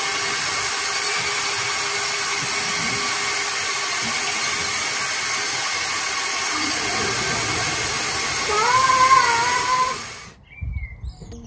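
Lego Technic tank's twelve Powered Up L electric motors and plastic tracks running under load while towing a child, a loud, steady whir with a thin whine. Near the end a child squeals with laughter, then the sound cuts off abruptly and music starts.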